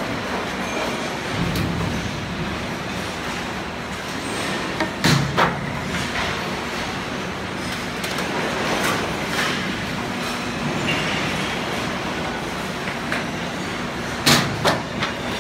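Waste-sorting conveyor line running with a steady mechanical drone and low hum. Sharp knocks of items striking the equipment sound twice close together about five seconds in, and again near the end.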